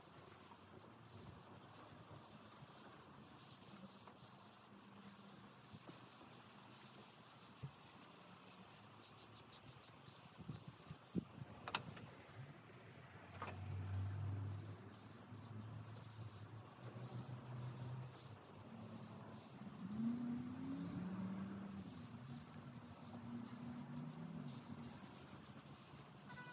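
Soft scratchy rubbing and a few light clicks as a cloth wipes finish onto mahogany strips and the strips are handled. From about halfway a louder low hum comes in, wavering and rising and falling in pitch, like a passing vehicle.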